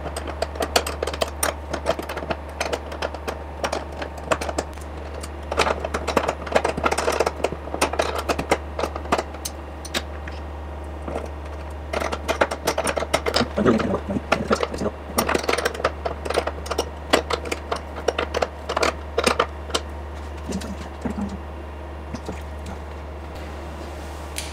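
Hand tools, a small wrench and locking pliers, working a nut on a car's frunk latch mechanism: bursts of rapid clicking and metal clatter as the part is tightened and loosened. A steady low hum runs underneath.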